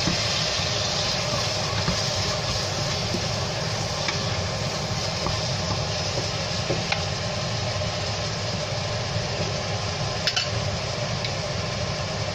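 Chopped onions, red capsicum and turmeric frying in oil in a stainless steel pot: a steady sizzle over a steady low hum, with a few faint clicks.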